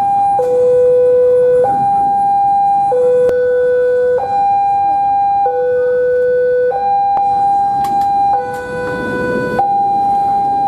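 Railway level-crossing warning alarm: a loud electronic two-tone signal alternating between a low and a high note about every 1.3 seconds. Under it an empty freight train's flatcars roll past with a low rumble and a few sharp wheel clicks.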